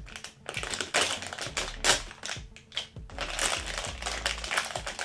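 Rustling and crackling of plastic toy packaging being handled and opened, in quick irregular bursts, over background music.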